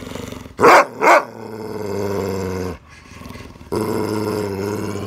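Akita Inu vocalising: two quick, loud calls about half a second in, then long, low, growling moans, twice, with a short pause between them. This is the drawn-out 'talking' sound the dog makes when it seems to say 'mama'.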